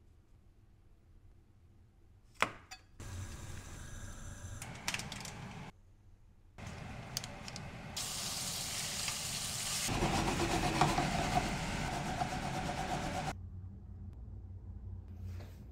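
Cooking sounds in several short cuts: food sizzling in a hot pan, loudest and steadiest for about five seconds past the middle, with a couple of sharp knocks of utensils before it.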